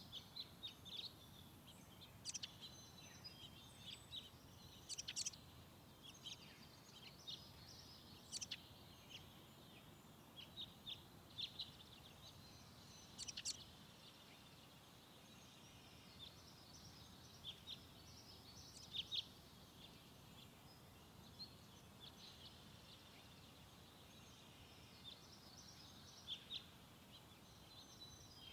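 Faint birdsong: small birds chirping in short, scattered calls over a low steady hiss.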